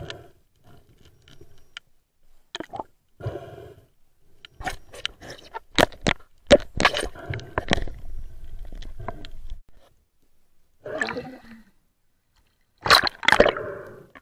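Underwater noise of a free diver swimming and handling gear: irregular clicks, knocks and bubbling, gurgling water, coming in bunches with quiet gaps between and a loud burst near the end.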